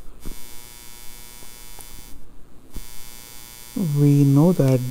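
Steady electrical mains hum and hiss in the recording. Near the end a man's voice holds a drawn-out sound.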